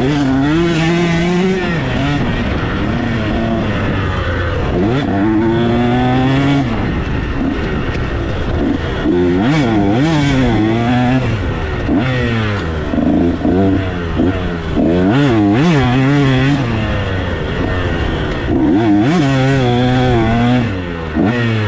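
Dirt bike engine revving hard on a motocross lap, its pitch climbing and dropping again and again as the throttle is opened and rolled off through the gears.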